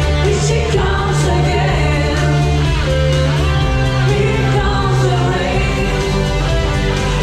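A song with singing over a steady bass line, playing at an even loudness throughout.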